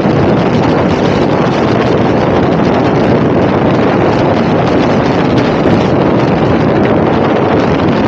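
Heavy, steady wind buffeting on the microphone of a camera carried on a moving motor scooter. No engine note stands out above it.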